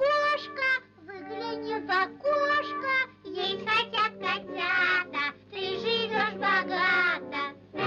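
High-pitched singing over musical accompaniment: short sung phrases with held, wavering notes.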